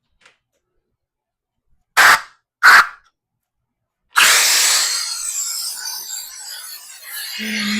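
Two short hisses of compressed air, then a longer blast from about four seconds in that slowly eases off, cooling freshly formed Kydex. Music comes in at the very end.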